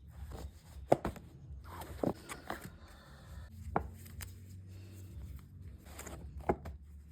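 Handling sounds: a few sharp taps and knocks with rustling between them, over a low steady hum.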